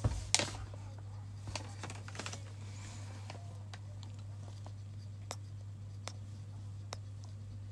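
Close-up kissing sounds into the microphone: two louder kisses right at the start, then single short lip smacks about every second, over a steady low hum.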